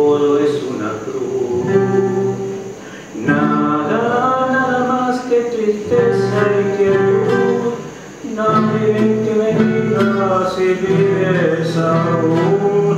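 A man singing a tango in long, drawn-out notes to his own acoustic guitar accompaniment.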